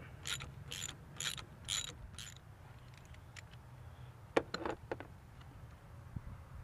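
Ratchet with a 13 mm socket on a long extension working the nut off the gearbox shifter: about five quick ratcheting strokes in the first two seconds. A few light metal clicks follow about four and a half seconds in.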